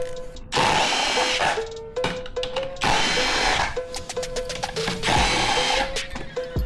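A power drill or driver runs in three short bursts of about a second each, each with a steady whine, over background music with a stepping melody.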